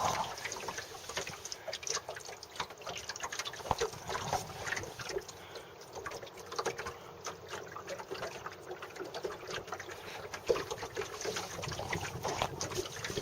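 Water lapping and trickling against the hull of a small sailing dinghy under way, an irregular patter of small splashes.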